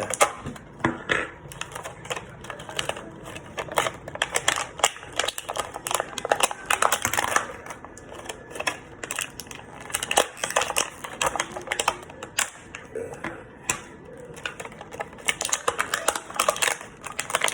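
Plastic Beyblade parts and their packaging clicking, tapping and rattling in quick irregular runs as the pieces are taken out and handled.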